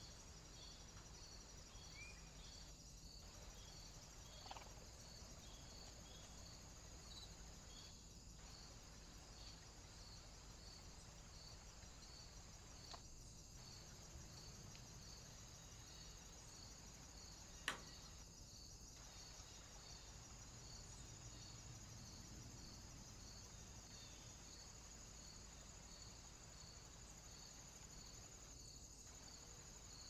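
Faint crickets chirping in an even, regular rhythm over a steady high hiss, with a single sharp click about two-thirds of the way through.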